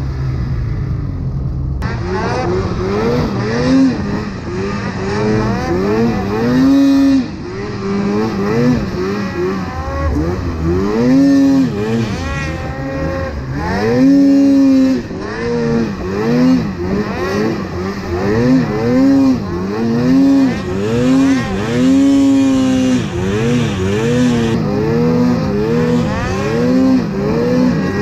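Snowmobile engine revved hard and eased off over and over as the throttle is worked through deep powder. The pitch climbs and drops about once a second.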